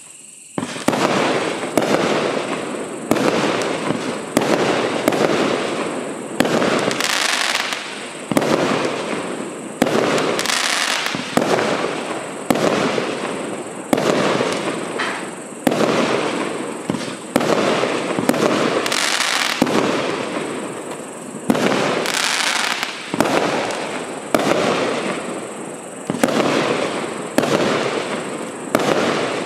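A 56-shot, 500-gram consumer firework cake firing its shots in steady succession, about one a second. Each shot is a sharp bang that trails off before the next.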